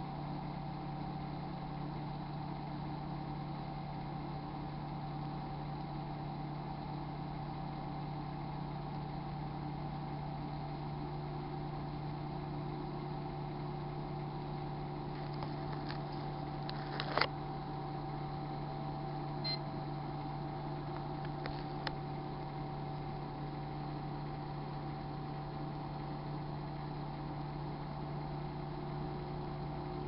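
Microwave oven running with a steady hum. A few sharp clicks come a little past halfway, one of them louder than the rest.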